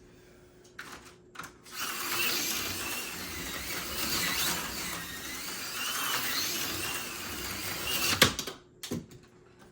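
AFX Super G-Plus HO scale slot car running under power, its tiny electric motor and gears whining, the pitch rising and falling as it speeds up and slows. The run starts about two seconds in and stops with a sharp click near the end.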